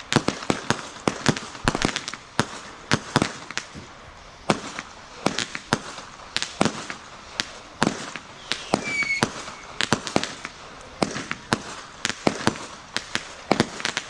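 Fireworks and firecrackers going off: irregular sharp bangs and pops, a few each second, some loud and close and others fainter. A brief faint whistle comes about nine seconds in.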